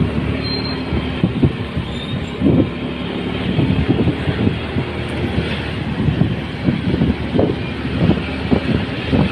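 Road vehicle running: a steady low engine hum with many irregular low thumps and knocks.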